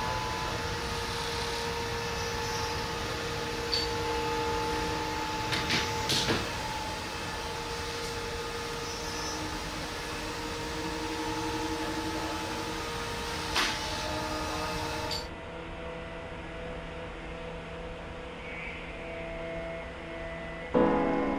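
A steady mechanical hum, like a fan or heater running in the room, with a few scattered sharp clicks. The hum changes pitch about three-quarters of the way through, and music begins at the very end.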